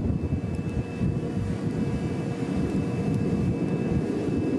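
Steady low rumble with a faint constant hum above it: the ambient noise of ships under way at sea.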